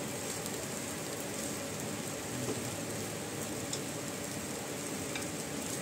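Poha sizzling as it is stirred and turned in a non-stick kadhai with a plastic spatula, a steady even hiss.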